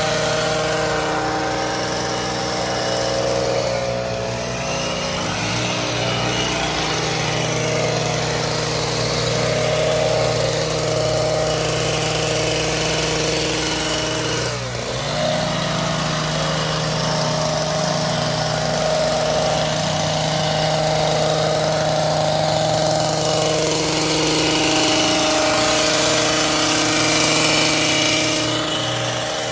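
Gas-powered hedge trimmer's small engine running at speed, its reciprocating blades cutting down dried ornamental grass. The engine note dips briefly about halfway through, then picks up again.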